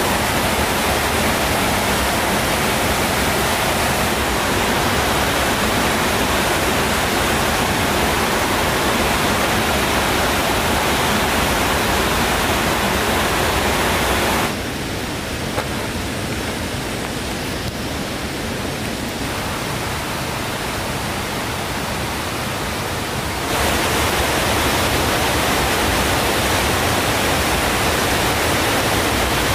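Steady rushing noise, even across high and low pitches. About halfway through it drops to a quieter, duller level for around nine seconds, then comes back as before.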